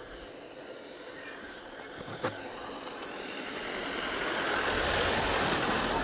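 A motor vehicle's engine and road noise, growing steadily louder over the last few seconds as it comes closer. A single short knock about two seconds in.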